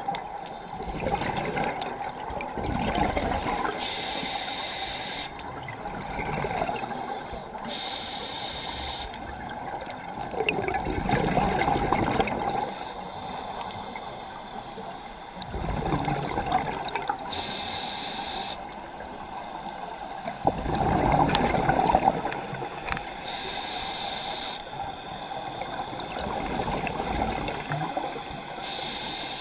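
Scuba diver breathing underwater through a regulator: a hiss on each inhale and a rush of bubbles on each exhale, in slow regular cycles a few seconds apart.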